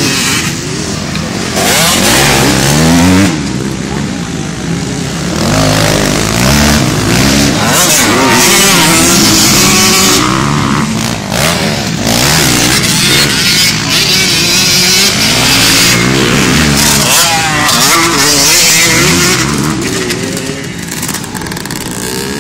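Several motocross motorcycle engines revving hard as they race, the pitch rising and dropping again and again through gear changes and throttle.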